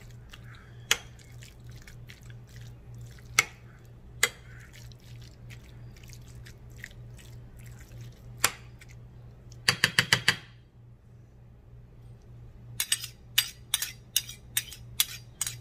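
Metal spoon clinking against a glass mixing bowl while stirring chicken salad. There are a few separate clinks, then a quick run of clinks about ten seconds in, then steady clinking about three times a second near the end. A low steady hum runs underneath.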